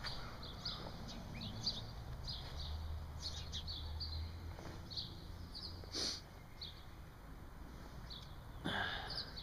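Small songbirds chirping: short, high calls repeated over and over from the trees, with two brief louder noises about six and nine seconds in.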